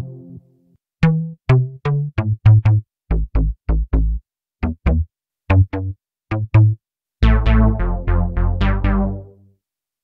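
Tone2 Gladiator software synthesizer playing short, punchy house bass stab presets as a staccato pattern of single notes. About seven seconds in comes a faster, denser run of notes, which stops shortly before the end.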